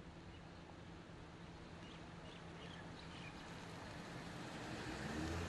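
Outdoor ambience with a car engine running steadily, getting louder near the end, and a few faint bird chirps in the middle.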